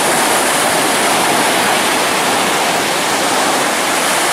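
Ocean surf: waves breaking and washing in, a steady, loud rush of water.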